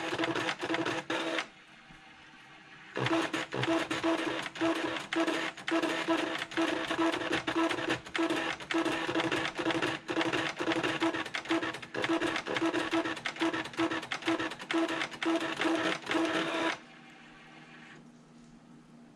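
Panasonic Penwriter printing a line of text with its pen mechanism: rapid, busy clicking and whirring with a pulsing tone about twice a second. It pauses briefly near the start and stops a few seconds before the end.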